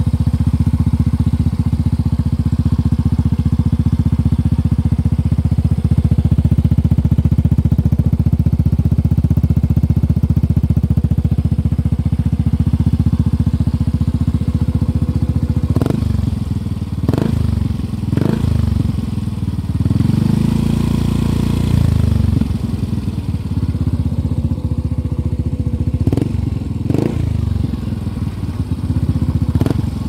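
Yamaha Mio i125 scooter's single-cylinder four-stroke engine idling steadily through a Spyker aftermarket exhaust, then revved in three quick throttle blips about halfway through. A longer rev is held for about two seconds, followed by three more blips near the end.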